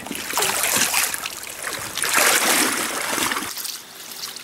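Water sloshing and splashing around wading legs in a trout stream, over the steady rush of the current; the sloshing eases off about three and a half seconds in.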